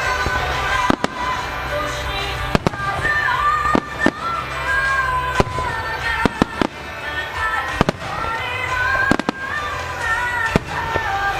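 Aerial firework shells bursting in about a dozen sharp, irregularly spaced bangs, over music with a singing voice.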